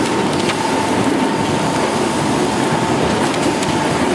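Chain-feed rotary die-cutting machine running steadily, its rollers feeding and cutting corrugated board sheets: a dense mechanical clatter with a constant high whine.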